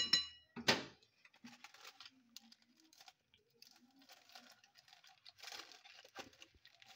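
A metal spoon strikes the rim of a glass mixing bowl once with a short ringing clink, followed by faint, scattered rustling and crinkling of handled kitchen items.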